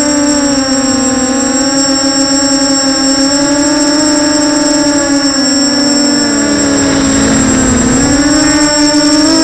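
FPV quadcopter's brushless motors and 6045 bullnose propellers whining, heard from the onboard camera. The pitch slides down and up with the throttle, dipping low a little past the middle and climbing again near the end, over a steady thin high-pitched whine.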